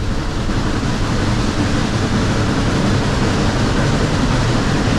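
Steam locomotive at close range: a loud, steady rush of steam and exhaust noise with no clear beat.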